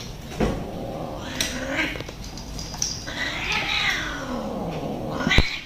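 A cat meowing again and again, with a long drawn-out call a little past halfway that falls in pitch. A sharp click near the end is the loudest sound.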